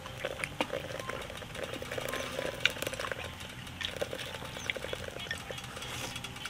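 A man eating hot chicken soup up close: chewing and slurping, with scattered light clicks of chopsticks against a bowl.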